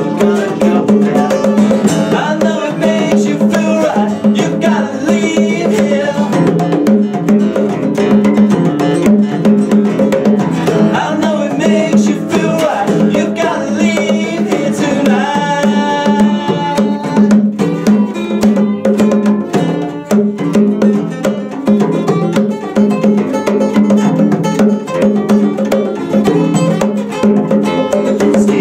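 Live acoustic band music: acoustic guitar and acoustic bass guitar with hand-played bongos, and male singing over them.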